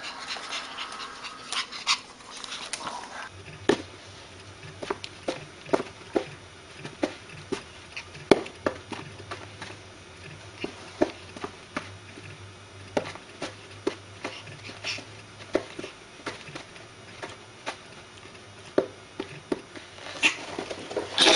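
Small Pomeranian dog panting as it plays, with irregular sharp ticks about twice a second.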